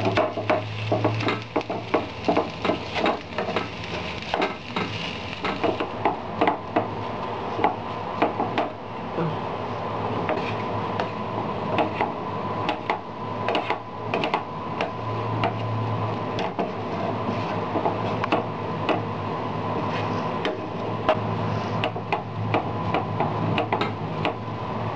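Metal potato masher mashing boiled potatoes in a nonstick frying pan: an irregular run of knocks and clicks as the masher presses down and strikes the pan.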